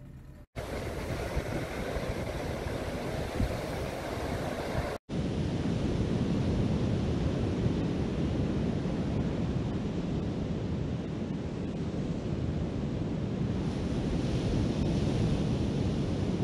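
Ocean surf washing onto a sandy beach with wind buffeting the microphone, a steady rush of noise. The sound cuts out briefly twice in the first five seconds.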